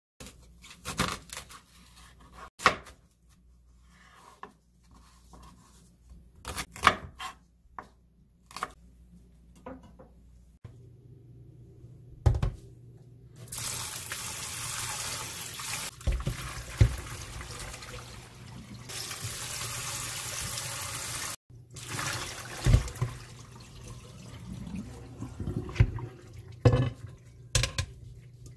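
Kitchen tap running hard into a stainless steel sink for several seconds midway, stopping abruptly, while diced Korean radish is rinsed by hand in a bowl. Scattered knocks and clatter of the bowl and radish cubes come before and after it, ending with the cubes handled in a metal colander to drain.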